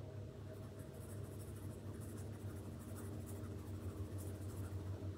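A coloured pencil being stroked back and forth across slightly coarse drawing paper, making many quick, faint scratches. A steady low hum runs underneath.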